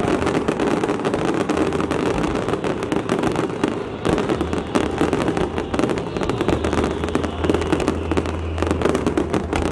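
Fireworks display at its height: many shells and crackling stars going off in quick succession, making a dense, continuous crackle of pops and bangs.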